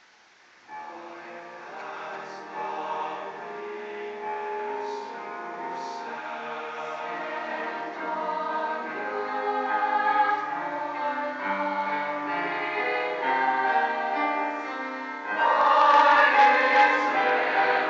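Large mixed choir singing, coming in after a brief hush under a second in and growing steadily, then swelling to a much louder passage a few seconds before the end.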